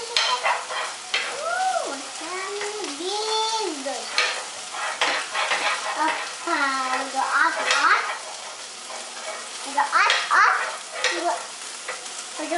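A metal utensil scraping and clinking in a frying pan and a steel saucepan as a toddler stirs. The toddler's high voice babbles, rising and falling in pitch, over the clatter.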